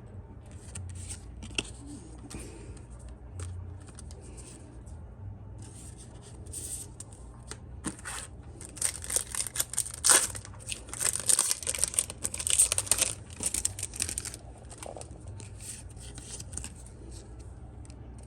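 Foil trading-card booster pack being crinkled and torn open, with the paper-and-foil rustle loudest in the middle stretch, then cards being handled.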